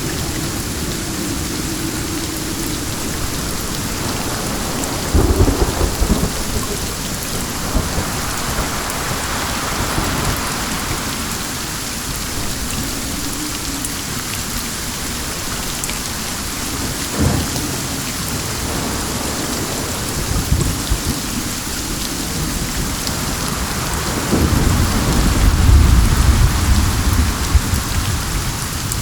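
Steady rain falling, with low thunder rumbling now and then: a rumble about five seconds in, a short sharp crack a little past halfway, and a longer, louder roll of thunder near the end.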